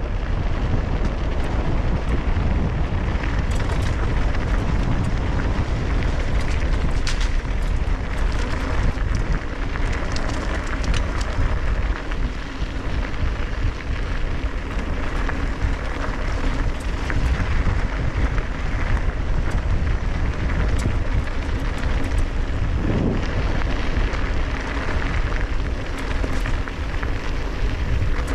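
Wind rushing over the microphone of a camera on a mountain bike descending at speed, heard as a steady, loud, dense rumble, with scattered clicks and rattles from the bike over the rough road.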